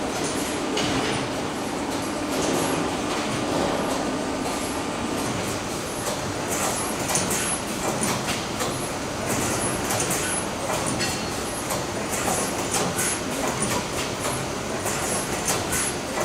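Car assembly line noise: a steady machinery din with many short metallic clicks and clanks, more of them from about midway on.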